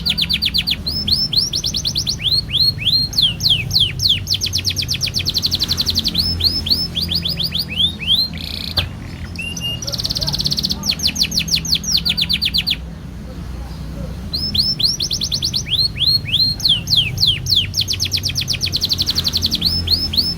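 Domestic canary singing long, fast rolls: rapid trains of repeated high notes, each roll at its own speed, with brief breaks about nine and thirteen seconds in.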